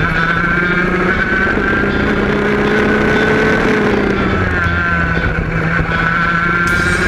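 Go-kart engine running hard at speed, heard onboard close to the kart. The engine note holds fairly steady, drops briefly a little past halfway, then climbs again.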